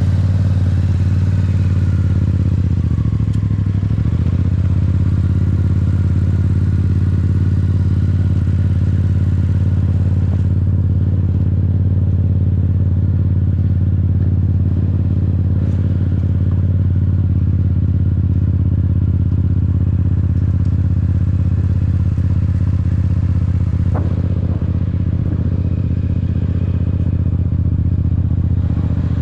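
Yamaha R7's parallel-twin engine idling steadily, with a slight dip in pitch about three to four seconds in. A single sharp click sounds near the end.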